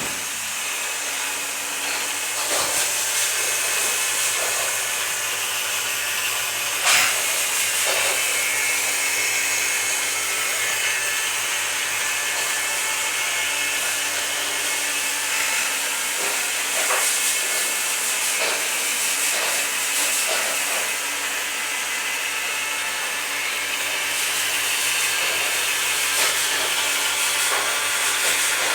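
A LEGO-built fan running: a small electric motor whirring steadily with a constant rush of air, and a few sharp plastic clicks, the loudest about seven seconds in.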